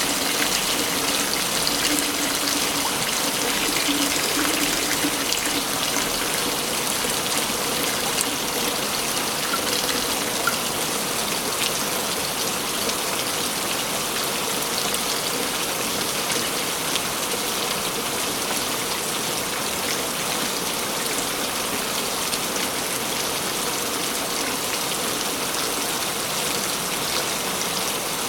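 Waterfall pouring steadily, a constant rushing of falling water.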